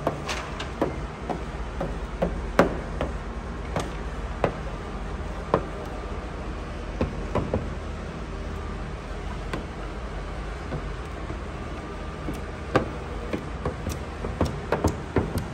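A hard plastic squeegee worked over wet paint protection film on a car's fender and hood, pressing out the slip solution: irregular light clicks and taps over a steady low hum.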